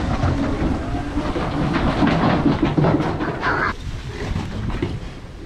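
Clattering and rumbling of hooves and boots on the floor of an aluminum livestock trailer while feeder pigs are unloaded, busiest about halfway through and easing off near the end.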